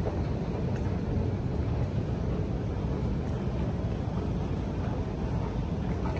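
Steady low rumble of background noise in a large underground station concourse, with a few faint ticks.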